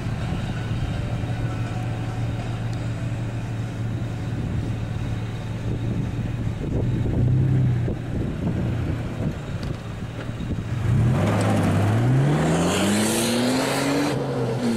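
Four-wheel-drive engine idling steadily, then revving up from about eleven seconds in, its note climbing as the vehicle accelerates away across the sand.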